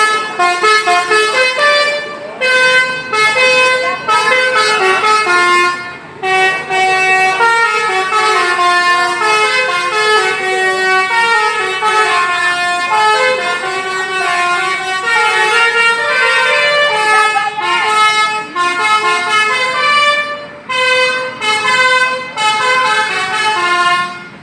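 Indonesian 'telolet' multi-tone musical bus horn, a Basuri V3, playing a loud, continuous tune of stepped notes, often several at once, with short breaks about two, six and twenty seconds in.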